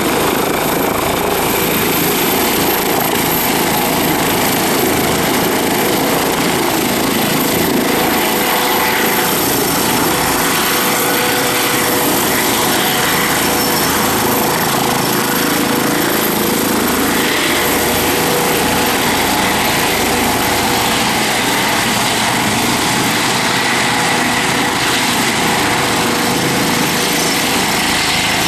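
Eurocopter EC135 helicopter with a shrouded fenestron tail rotor lifting off and hovering low. Its twin turbine engines, main rotor and fenestron make a loud, steady running noise with a whine in it.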